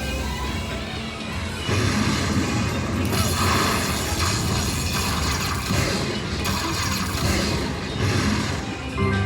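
Lightning Link Bengal Treasures slot machine playing its electronic game music. About two seconds in, loud crashing and booming effects come in surges and run until near the end, when the steady jingle returns.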